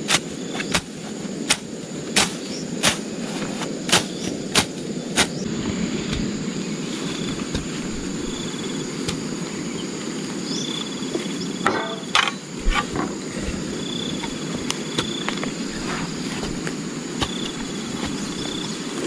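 Sharp, evenly paced tool strikes on wood, about one every two-thirds of a second, stopping about five seconds in, with a few more knocks near the middle. Insects call steadily behind, with short high chirps.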